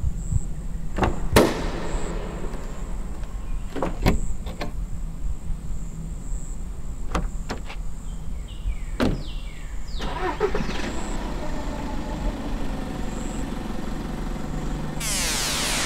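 Car door handling: a series of sharp clicks and knocks as a small car's door is opened and shut and someone settles into the driver's seat, then, as the ignition key is turned, a sudden loud rushing noise sets in near the end.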